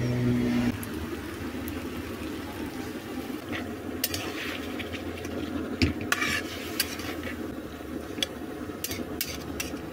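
Cauliflower and potato sabzi being stir-fried in a metal kadhai, with a steady low sizzle. A spoon scrapes and clinks against the pan several times in the second half.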